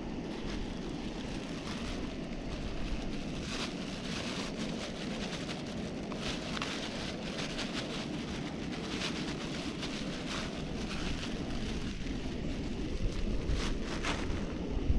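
Onion and red pepper sizzling in a small wok on a camping stove, with occasional louder crackles and a low wind rumble on the microphone.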